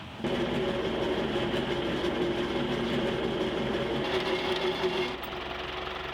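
A small engine running steadily, starting abruptly just after the start and dropping to a lower, quieter note about five seconds in.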